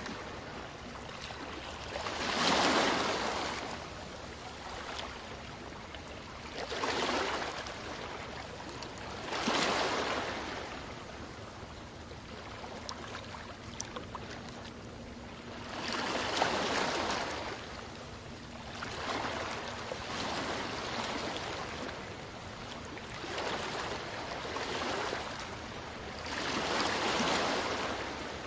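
Small waves washing onto a sandy beach, swelling and falling back every few seconds.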